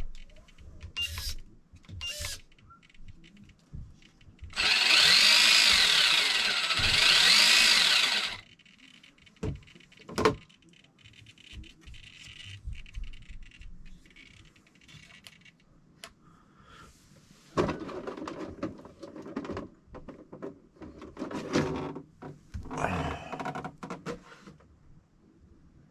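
A small electric motor whirs loudly for about four seconds, its pitch wavering, then scattered clicks and knocks of small parts being handled. Several shorter whirring bursts follow later.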